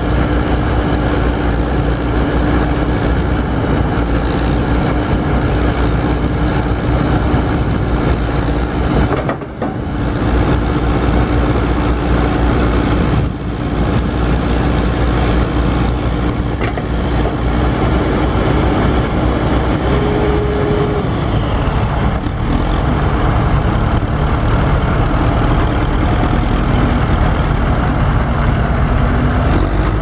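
A 1995 JCB 214S backhoe loader's diesel engine idling steadily, with two brief dips in level about a third of the way through.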